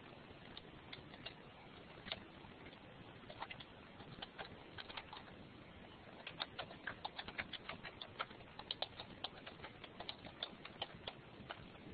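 Faint typing on a computer keyboard: scattered key clicks, coming quicker and in bunches over the second half.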